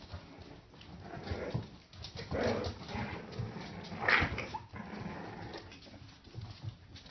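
Blue Staffordshire bull terrier puppies fighting, giving irregular short yips and whimpers, with the loudest sharp cry about four seconds in.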